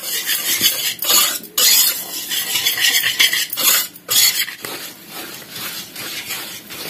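Wire whisk scraping and clinking against a steel bowl as it stirs dry flour mix, then thick batter, with two short breaks.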